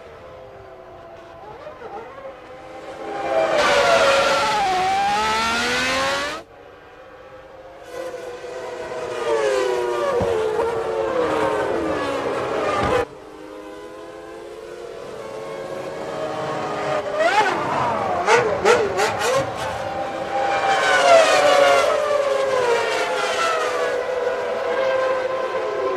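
1995 Formula One cars' high-revving 3-litre racing engines, several in turn, their pitch climbing and falling as they rev and sweep past. The sound breaks off abruptly twice, about six and thirteen seconds in, where one shot cuts to the next.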